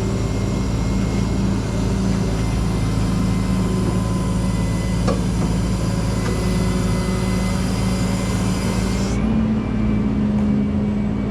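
Rollback tow truck's hydraulics working the bed out and down: a steady engine hum with a hiss and faint whine over it. About nine seconds in the hiss stops and the engine note steps up slightly.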